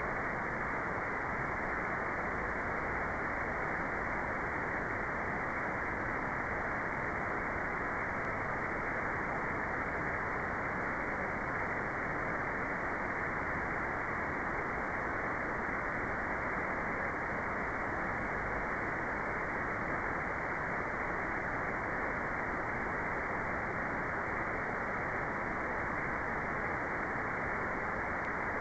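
Steady, unchanging synthetic noise of a white-noise meditation track, cut off above the mid-treble so it is a dull, even rush with no bright hiss.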